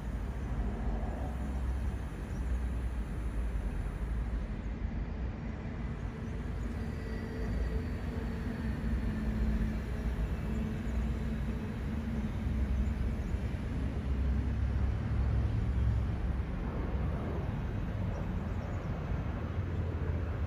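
Steady outdoor background noise, mostly a deep low rumble, with a faint humming tone that comes and goes.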